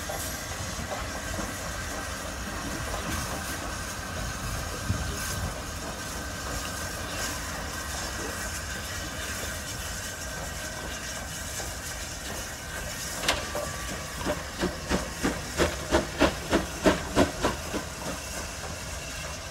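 USATC S160 2-8-0 steam locomotive working a train of coaches, with a steady hiss of steam. After a sharp click about two-thirds of the way through, a run of rhythmic beats follows, about three a second, growing louder and then stopping near the end.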